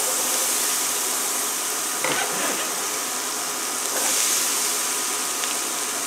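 Diced onion, celery and sweet peppers sizzling steadily in hot oil and butter in a skillet, the hiss starting as the vegetables are scraped into the pan.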